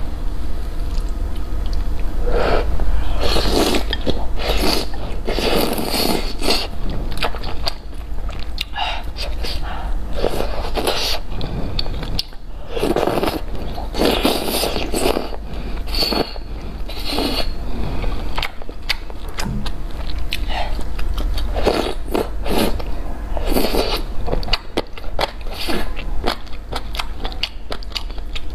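Close-miked eating of spicy noodle soup: noodles and broth slurped from the bowl's rim, then wet chewing of the noodles and the soft pieces from the soup. It comes in irregular bursts over a steady low hum.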